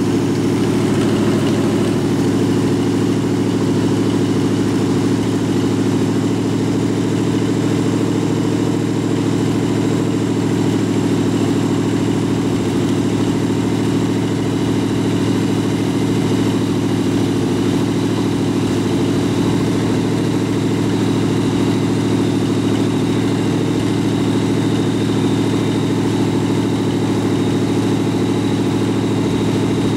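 Engine idling steadily while it drives a York AC compressor converted to pump air, filling the air tank as the pressure builds.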